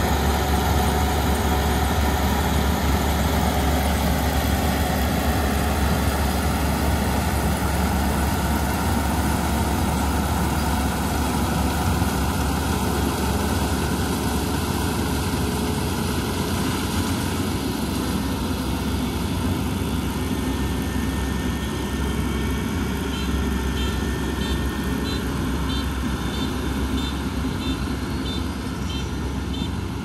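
Kubota ER 470 combine harvester running steadily at work, a constant low engine-and-machinery drone that fades a little as it moves off. About two-thirds of the way through, a high electronic beeping starts and repeats about twice a second: the harvester's alarm that the grain tank is full.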